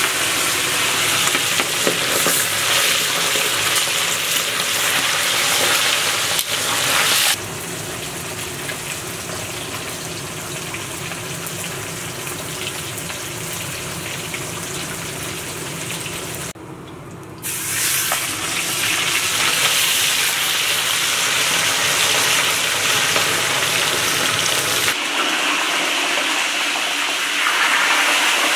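Bone-in meat frying in hot oil in a kazan, a steady sizzle. The level drops abruptly about a quarter of the way in, dips briefly about halfway, and changes again near the end.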